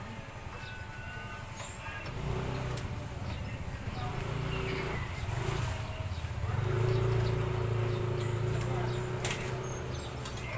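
A motor vehicle engine running in the background, coming in about two seconds in, loudest a little past the middle, then easing off, with birds chirping.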